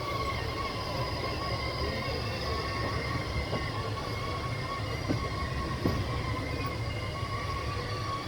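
Passenger train running on the line, heard from inside a carriage: a steady rumble of wheels on rails with a steady high whine over it, and two brief knocks about five and six seconds in.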